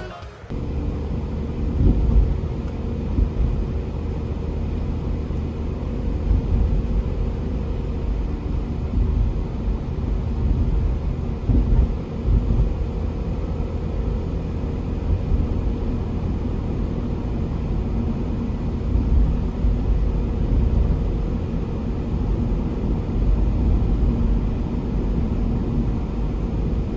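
Honda Step WGN (RG1) minivan on the move: steady low road rumble and engine noise with a faint steady hum, gently rising and falling in loudness.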